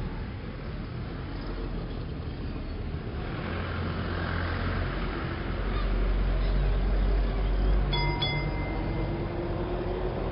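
Steady low rumble of a vehicle in motion that grows louder after about three seconds, with a single short ding about eight seconds in.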